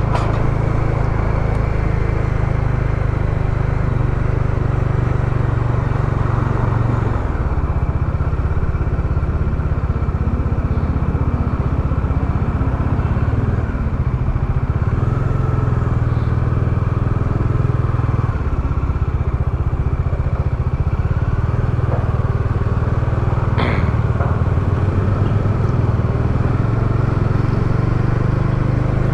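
Motorcycle engine running at riding speed with wind and road noise, a steady low rumble picked up by a lavalier mic inside the rider's helmet chin curtain. A short sharp click about three-quarters of the way through.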